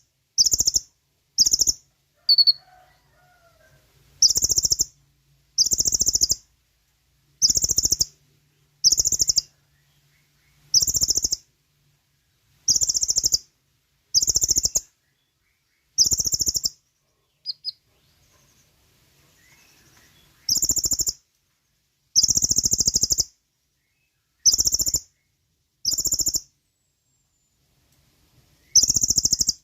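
Kolibri ninja (sunbird) song: short, high-pitched, buzzy trills repeated about every one to two seconds, with a couple of brief pauses.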